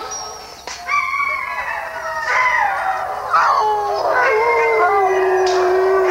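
A chorus of sled dogs (huskies) howling. Several voices overlap in long, drawn-out notes that slide mostly downward.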